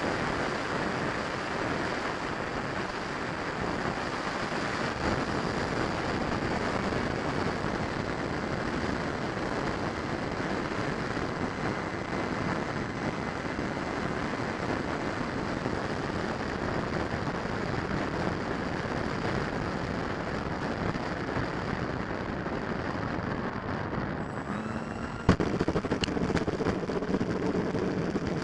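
Steady rush of air and ducted-fan noise picked up by an onboard camera on a Freewing F-35 70 mm electric-ducted-fan RC jet on its landing approach. About 25 seconds in, a sharp knock as the landing gear touches down, then a rougher rolling rumble of the small wheels on asphalt.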